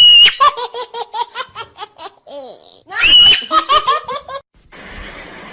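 High-pitched human laughter: a shrill squeal breaks into a quick run of 'ha-ha' bursts, and this happens twice. Near the end it gives way to a steady hiss.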